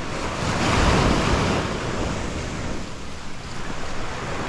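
Surf washing onto the beach with wind buffeting the microphone; a wave swells and breaks about a second in.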